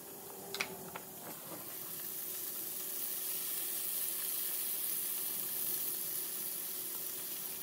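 Shrimp sizzling in melted butter and olive oil in a frying pan, a steady hiss. A few sharp clicks in the first second or so, from a knife cutting a lemon on a plastic cutting board.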